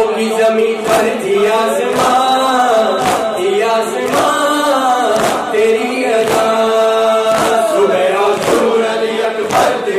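Male reciter singing a noha (mourning lament) through a microphone, with a crowd of men chanting along, over a steady beat of hands striking chests about twice a second: matam, ritual chest-beating in mourning.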